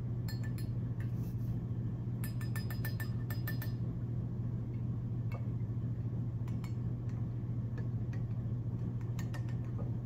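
A stirring rod clinking against glass bottles of water as food colouring is stirred in, including a quick run of light clinks about two to three and a half seconds in and scattered single taps. A steady low hum runs underneath.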